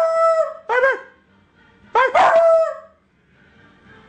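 A puppy 'talking' in howling calls: one call trailing off into a held note, a short call just after it, then a longer one about two seconds in that starts with a quick up-and-down and settles into a held note.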